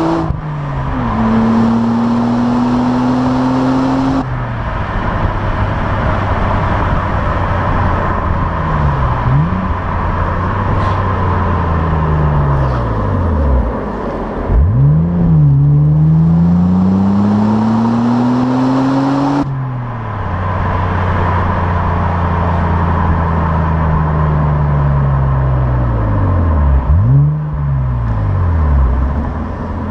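Opel Insignia OPC's turbocharged 2.8-litre V6 through its stock exhaust, being driven: the engine note climbs slowly under acceleration and drops sharply and climbs again several times as gears change, over steady road and wind noise.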